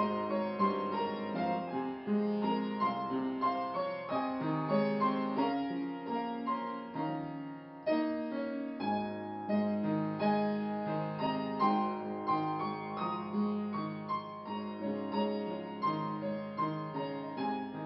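Piano music, a steady run of notes with a brief break about eight seconds in.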